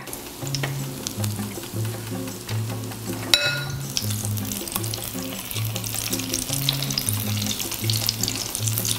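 Hot canola oil sizzling and crackling as spoonfuls of fritter batter deep-fry in a sauté pan, the crackle getting busier after a short ringing clink about a third of the way in. Background music with a steady bass line plays underneath.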